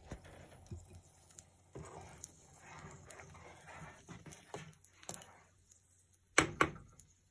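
Slotted spatula stirring thick red chili sauce in a saucepan, with soft scrapes and taps against the pan. Two louder knocks come near the end.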